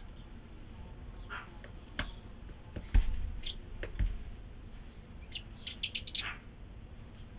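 Short, high squeaky peeps, with a quick run of them about six seconds in: a bearded vulture chick calling in the nest while being fed. Two dull knocks about three and four seconds in, the first the loudest sound.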